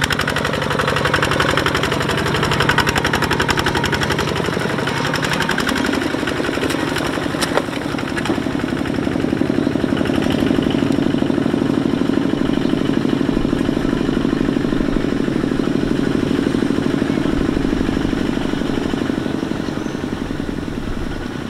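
Two-wheel walking tractor (power tiller) with its single-cylinder diesel engine chugging steadily as it pulls a loaded trailer.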